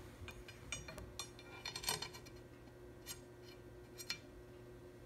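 Light metallic clicks and short ringing clinks as a steel angular contact bearing is handled and fitted onto the machined end of a ball screw. A quick run of clinks comes in the first two seconds, the loudest near the end of that run, then two single clicks follow about a second apart.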